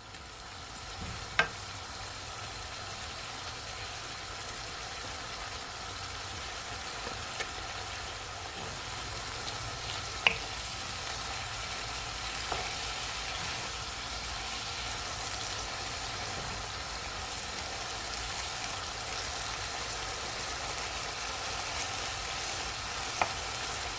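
Escovitch dressing of onions, carrots and peppers in hot vinegar sizzling in a wok, just off the boil, while a wooden spoon stirs it. There are a few sharp knocks of the spoon against the pan.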